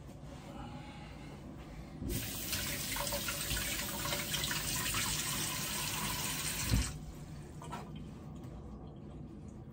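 Kitchen tap running into the sink for about five seconds: a steady rush of water that starts abruptly about two seconds in and stops suddenly with a knock near the end.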